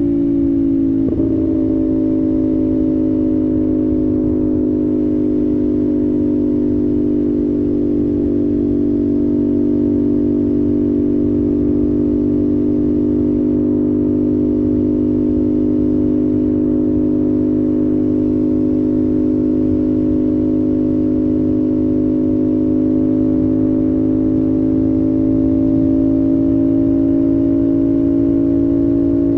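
2025 CFMOTO 450SS parallel-twin engine under way at expressway speed. Its pitch drops sharply about a second in, then holds steady, rising slightly near the end.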